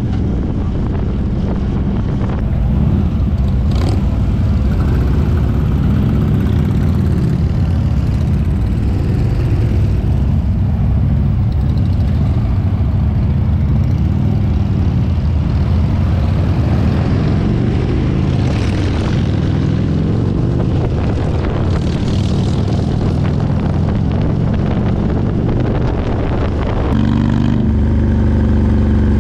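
Harley-Davidson motorcycle's V-twin engine running at riding speed, with wind and road noise. About 27 seconds in, the engine note changes and steadies.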